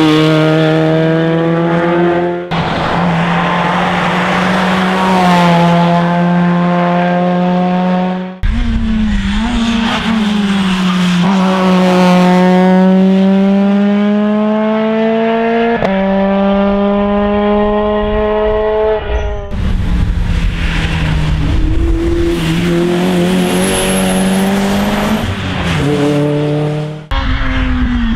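Rally car engines at full throttle on a special stage, revving up and down through the gears as they pass, in several short clips that cut abruptly from one car to the next.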